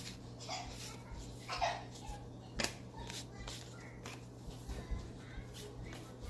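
Faint clicks and light rustles of baseball trading cards being handled and flipped through, one card after another.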